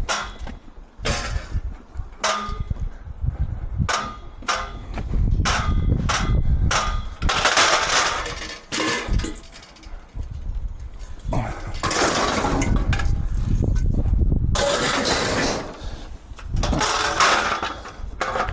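Scrap metal being handled and loaded onto a truck: a run of irregular metal clanks and knocks, some ringing briefly, between stretches of scraping and shuffling.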